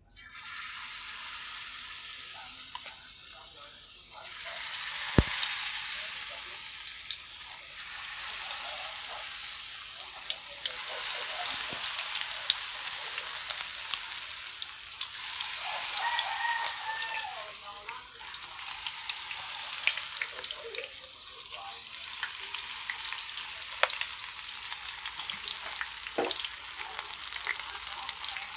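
Vegetarian fritters of batter, diced vegetables and tofu deep-frying in hot oil in a pan, with a steady sizzle that swells and eases, and a few sharp clicks.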